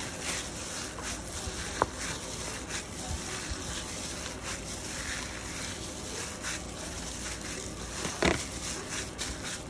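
A plastic-gloved hand kneading raw chicken kebab mince with breadcrumbs in a stainless steel bowl: irregular wet squishing and glove rustling over a steady background hiss, with a louder knock against the bowl about eight seconds in.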